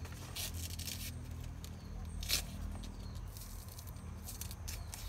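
Knife cutting the juicy stalks of elephant-ear (bon) plants amid rustling leaves and stems, with a few crisp snaps, the sharpest a little over two seconds in.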